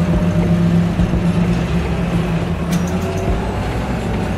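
A motor vehicle's engine running steadily, a low drone that eases off a little about three seconds in.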